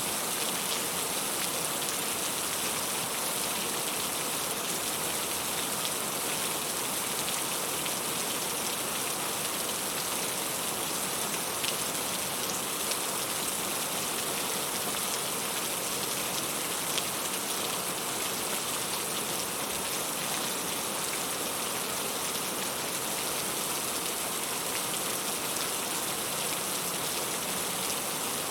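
Steady rain falling, an even hiss of many drops on a surface, with one or two single drops standing out.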